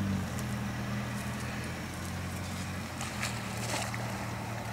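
Kia Sportage engine running steadily at low revs while the SUV sits in a muddy water hole, with a few faint clicks and crackles over it.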